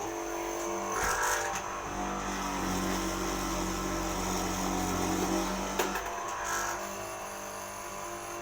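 Motor of a woodworking mortising machine running steadily, its tone shifting slightly a couple of times as it works.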